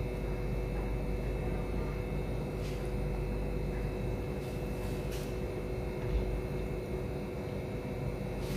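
Steady machine-like hum with a low rumble, as from a fan or air conditioner, with a few faint soft clicks from handling.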